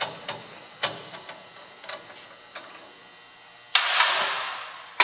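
Metal clicks and clinks as the hex nut, top plate and union nut are worked loose and lifted off the grinder's fixture by hand. About four seconds in comes a louder metallic scrape and rattle that fades over about a second.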